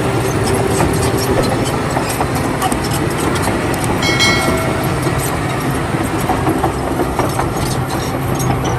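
Toy bulldozer running: a small motor's steady hum under a continuous mechanical clatter, with a few brief high tones about four seconds in.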